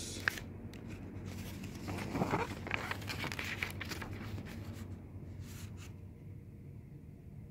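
Pages of a paper quick start guide booklet being handled and turned, a rustle that is loudest a couple of seconds in and fades to quieter handling near the end, with a short click just after the start.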